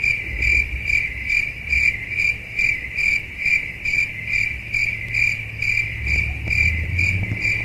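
A cricket chirping in a steady rhythm, a little more than two chirps a second, over a low rumble.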